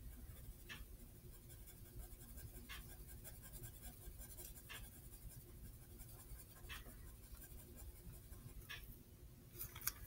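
Faint pencil strokes scratching on paper as a sketch is drawn, with a soft click about every two seconds.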